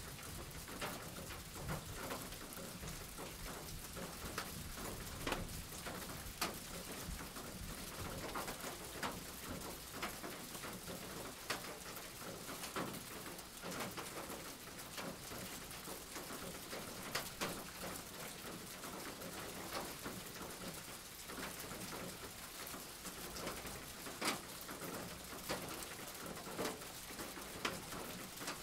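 Steady rain falling: an even hiss with scattered, irregular drop clicks.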